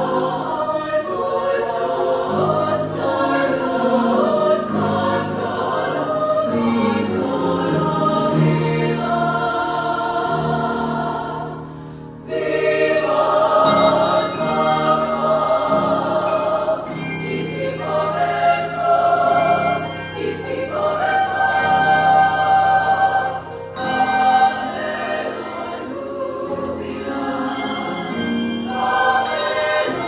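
Women's choir singing in several parts, holding chords. About twelve seconds in the sound thins and dips briefly, then the choir comes back in fuller and louder.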